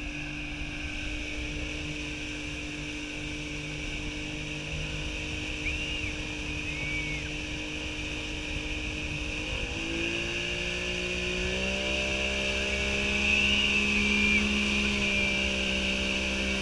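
Speedboat's outboard motor running under load while towing a banana boat, throttled up about ten seconds in, its pitch rising in two steps. Under it, the rush of the wake and wind.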